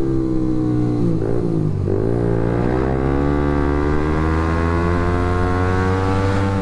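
Suzuki GSX-S150's single-cylinder engine running through an aftermarket SARP exhaust fitted with a dB killer, under way: the revs dip sharply about one to two seconds in, then climb steadily for the rest as the bike accelerates.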